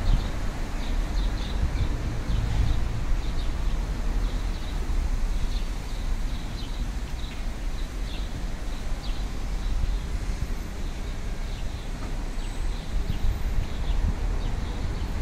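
City street background: a steady low rumble of traffic and wind, with small birds chirping in short, irregular high notes throughout.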